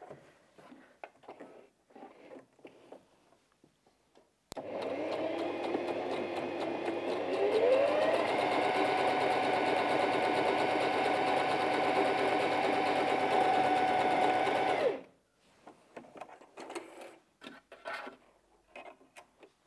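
Bernette 05 Academy sewing machine stitching a wide zigzag. It starts about four seconds in, rises in pitch as it speeds up, runs steadily at full speed, and stops after about ten seconds. Faint clicks come before and after.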